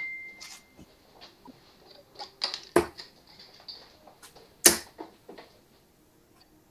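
Steel-tip darts striking a Winmau bristle dartboard: two sharp thuds about two seconds apart, the second the louder, and a third just at the end. A brief high beep sounds at the very start.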